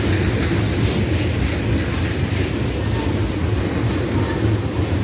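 Railroad tank cars of a freight train rolling past at close range: a steady rumble of steel wheels on the rails.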